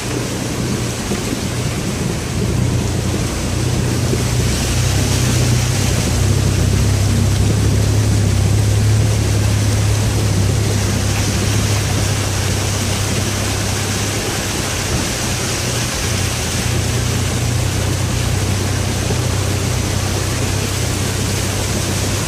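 4Runner's engine running with a steady low drone as the truck wades through a shallow creek, with water sloshing and splashing around the tyres and body.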